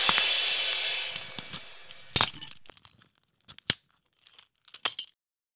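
Sound effect of a screen's glass shattering: the crash fades out over the first two seconds, then a few loose shards clink down one at a time, the last about five seconds in.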